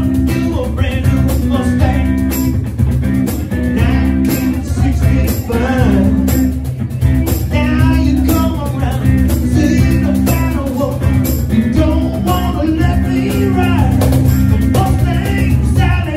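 Live blues band playing: a man singing into a microphone over an archtop guitar, with a cajón keeping a steady beat.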